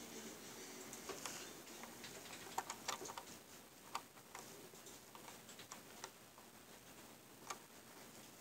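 Light, irregular clicks and taps of plastic Lego bricks being handled and fitted back together.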